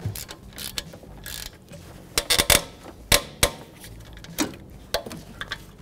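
A 3/8-inch hand ratchet and socket clicking as bolts are run in, with a few louder metal clanks of tools about two to three and a half seconds in.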